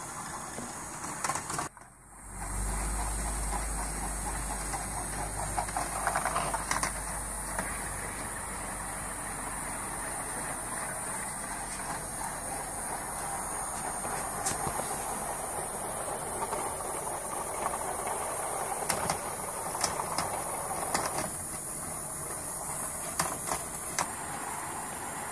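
Bandai Spacewarp marble roller coaster running: steel balls roll steadily along the plastic track and swirl around the plastic funnels over the whir of its small electric lift motor, with scattered light clicks as balls knock against the track. The sound dips briefly about two seconds in.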